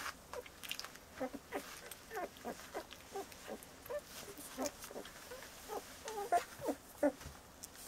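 Bordoodle (border collie–poodle cross) puppies, about 17 days old, making frequent short squeaks and whimpers as they crawl over each other, with the loudest squeaks near the end.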